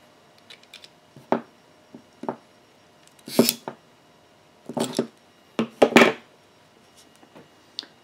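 Sharp clicks and snips of a hand crimping tool being handled and closed on the ends of network cable wires, about a dozen scattered over the stretch, the loudest about three and a half and six seconds in.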